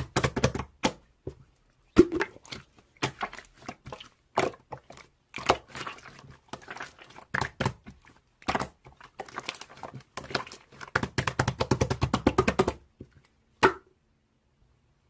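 Slime being squished and pressed by hand: an irregular run of sticky clicks and pops, thickening to a dense stretch before it stops near the end.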